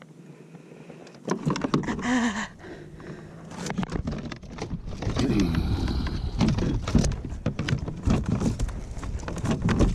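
Handling noise in a plastic fishing kayak: a landing net's frame and mesh knocking and rattling against the hull while a tangled redfish is worked free by hand. Quiet at first, then a run of irregular knocks and bumps from about a second in, growing busier in the second half.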